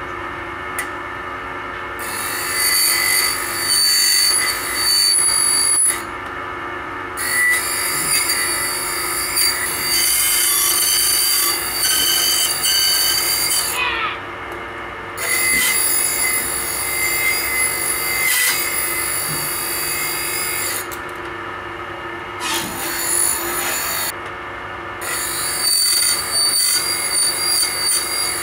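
Circular saw blade grinding machine running with a steady motor hum while a circular saw blade's teeth are pressed against its grinding wheel, giving five stretches of harsh metal-on-wheel grinding, each a few seconds long, separated by short pauses where only the motor hums as the blade is moved to the next tooth.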